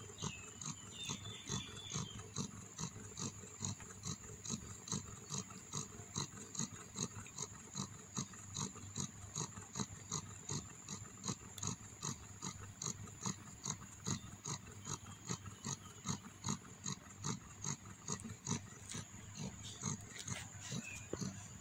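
Mother cat purring steadily in a regular pulsing rhythm, about two to three pulses a second, while her newborn kittens nurse. Faint high squeaks from the kittens come near the start and near the end.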